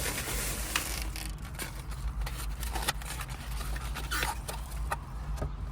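Eating sounds: chewing, with scattered clicks and scrapes of a plastic fork against a takeout container, over a steady low hum.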